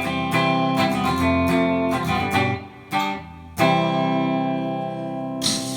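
Guitar strumming chords to close the song, a short break, then a final chord left ringing that cuts off suddenly near the end.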